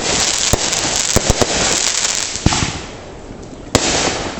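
Fireworks going off: dense crackling studded with sharp pops for the first two and a half seconds, then a single bang, and another loud bang near the end followed by more crackling.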